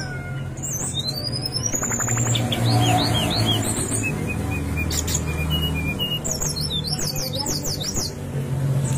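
Brown-chested jungle flycatcher singing: a quick rising run of high notes, then short flicked chirps, and near the end a fast run of falling notes, over a steady low hum.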